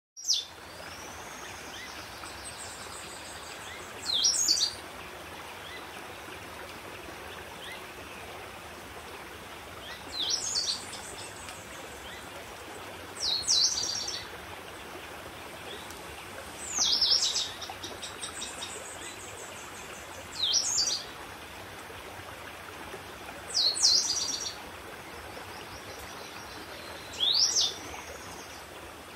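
A forest bird calling again and again, a short call of quick downward sweeps about every three to four seconds, over the steady rush of a small stream.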